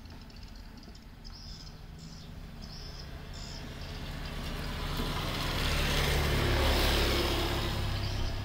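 A motor vehicle passing by, its engine hum and road noise swelling over a few seconds, peaking about two-thirds of the way through and then easing off. Repeated short high chirps sound in the first half.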